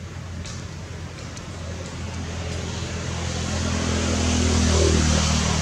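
A motor vehicle's engine humming, growing steadily louder to a peak near the end as it approaches.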